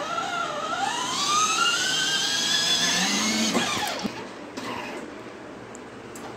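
Electric drive motor and gearbox of a children's battery-powered ride-on toy car whining as it drives, the pitch climbing steadily as it picks up speed. About three and a half seconds in it winds down sharply and stops.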